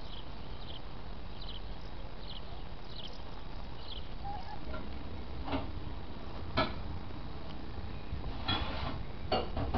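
A bird chirping, one short high call a little under every second, stopping about four seconds in. After that come a few sharp knocks and a brief rustle, over a steady low rumble.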